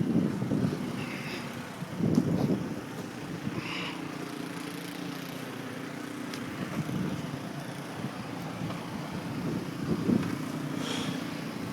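Wind buffeting the microphone in gusts of low rumble during a snowstorm. A faint steady hum runs underneath from about four seconds in.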